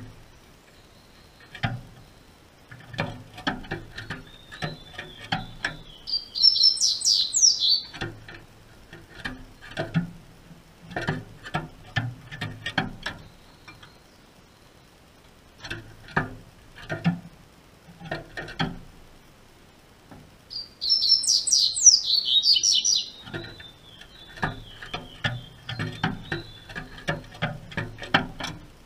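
Double-collared seedeater (coleiro) song: two short bursts of fast, high, descending notes, about six seconds in and again about twenty-one seconds in. Between and under them are many short taps and rattles of the bird hopping on the wooden perches and wire cage.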